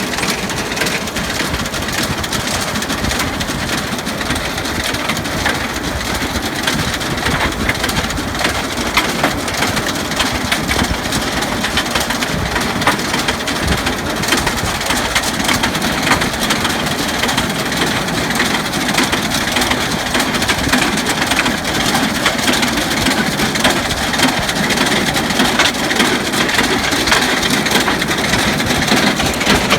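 Hattat tractor engine running steadily while the towed stone-picking machine works, with a dense, continuous clatter of stones being gathered.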